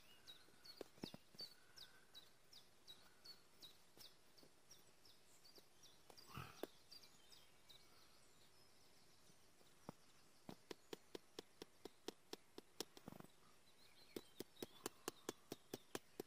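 Quiet light clicking of a spoon against an instant porridge pot as it is stirred, a quick run of taps several times a second in the second half. In the first few seconds a bird repeats a short, high, falling note.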